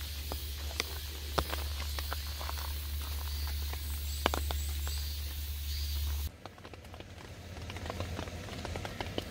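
Rain falling on a camping tent and tarp: scattered drops tap and patter irregularly over a soft hiss of rain. A steady low rumble stops abruptly about six seconds in, after which the rain sounds duller.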